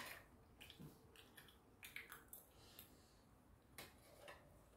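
Faint eating sounds: metal chopsticks and a spoon clicking against a stainless steel compartment tray, a sharp click at the very start and then scattered light clicks, with quiet chewing.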